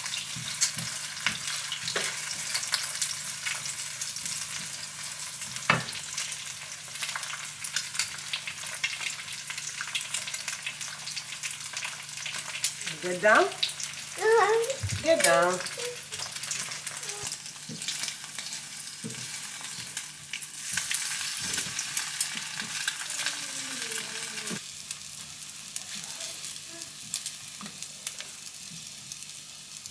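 Eggs sizzling in a nonstick frying pan while a spatula stirs and scrapes them, with many small clicks of the spatula against the pan. The sizzle gets quieter near the end.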